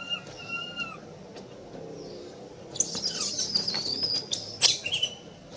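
Infant long-tailed macaque crying: two short rising-and-falling cries, then about two seconds of louder, high, shrill screaming.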